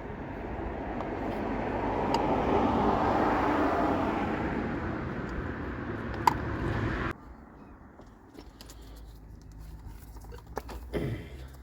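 A road vehicle passing by, swelling over a few seconds and fading, then cut off sharply about seven seconds in. After that comes a low background hum with a few light clicks of hand work.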